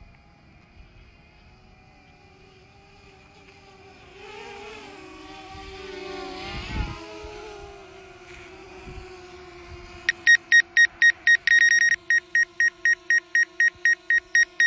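DJI Mavic Air quadcopter's propellers humming with a slightly wavering pitch as it hovers and flies near, louder for a few seconds in the middle. From about ten seconds in, a rapid run of loud electronic beeps, about four a second, sounds over the hum.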